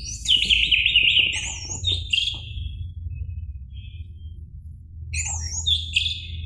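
Orange-headed thrush singing: two bursts of fast, rich whistled warbling, one at the start lasting about two and a half seconds and another about five seconds in, over a low steady hum.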